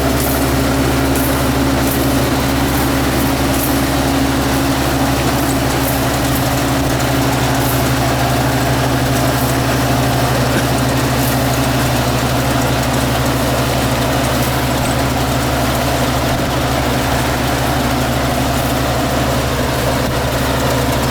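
Farm machine engine running steadily at constant speed, a continuous low hum that does not change.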